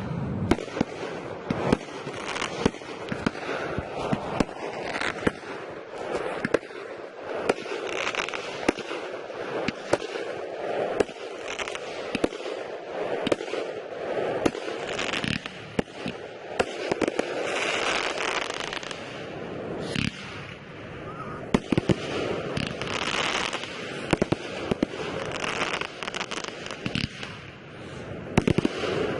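Aerial fireworks display: frequent sharp bangs of shells bursting, several a second at times, over continuous crackling.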